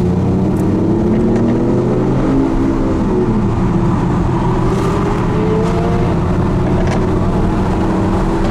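Sports car engines under hard acceleration, the Lamborghini Aventador S among them. The engine pitch climbs and then drops several times as the gears change, over a heavy rumble of road and wind noise, with a few faint sharp pops.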